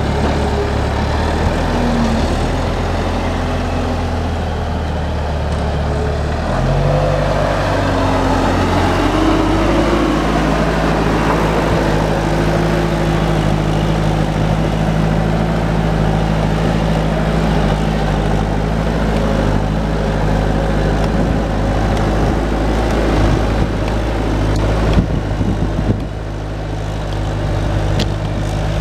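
Bobcat skid-steer loader's diesel engine running steadily, its pitch stepping up about six seconds in as the throttle is raised, with a whine rising and falling over it as the machine drives. A few sharp knocks near the end.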